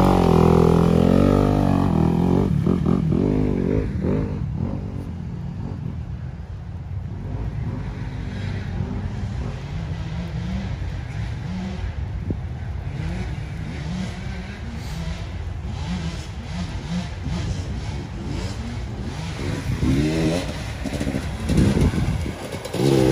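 Dirt bike engines revving. One bike revs loudly close by and fades away over the first few seconds. Bikes keep running further off through the middle, and another bike revs up loudly near the end as it comes closer.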